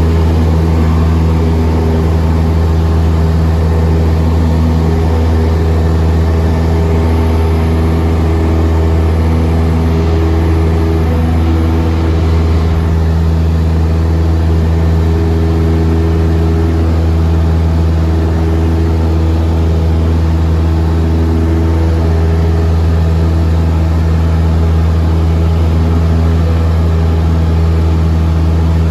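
Cessna 172's piston engine and propeller droning steadily, heard from inside the cabin, with a strong low hum that holds the same pitch throughout.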